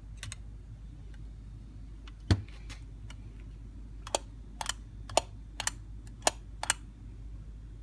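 Short sharp metal clicks of a screwdriver turning the small screw that holds the fast idle cam on a Holley 94 carburetor. One louder knock about two seconds in, then about eight quicker clicks between four and seven seconds.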